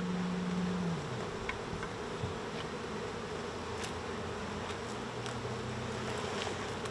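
Honeybees buzzing around an open hive, a steady hum. One bee is loud and close in the first second, its buzz sliding down in pitch as it passes.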